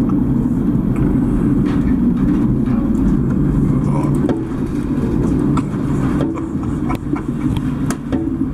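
Steady low drone of a ship's engines and machinery, with faint knocks and rattles over it; it drops a little in level about four seconds in.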